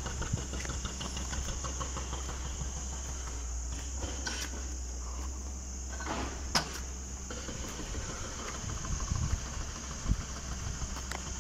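Steady high insect drone over a steady low rumble, broken by a few short sharp clicks about four, six and a half and ten seconds in.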